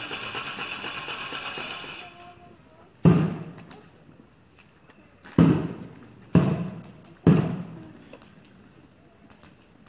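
A steady rattling clatter stops about two seconds in. Then come four heavy thuds, each dying away over most of a second: the first about a second later, the other three roughly a second apart.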